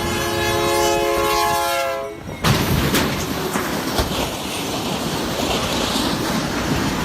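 Train horn sounding a chord of several notes for about two seconds, its pitch falling slightly, then cut off by a sudden loud rush of the train passing, with wheels clicking over rail joints.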